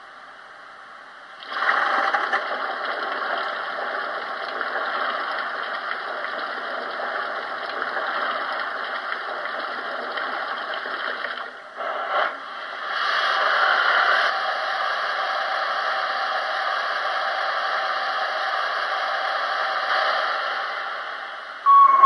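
Steady rushing, water-like hiss from the Loksound V4 sound decoder and tender speaker of a Hornby A3 model steam locomotive standing still, most likely the taking-water effect. It starts about a second and a half in, breaks off briefly near the middle, comes back louder, and fades near the end.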